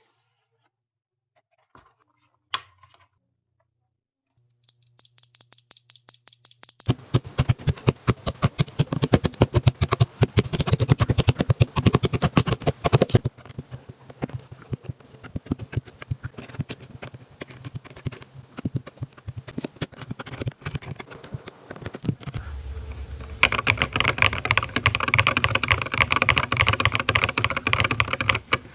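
Mechanical keyboard with Akko V3 Cream Yellow Pro linear switches being typed on. After a near-quiet start with a single click, keystrokes come sparsely, then turn into fast continuous typing from about seven seconds in, softer for a while in the middle and louder again near the end.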